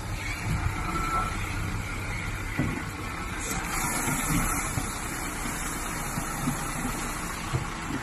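Heavy dump truck's diesel engine running with a steady low rumble as the truck moves slowly over rough ground, with scattered knocks. A short hiss comes about three and a half seconds in.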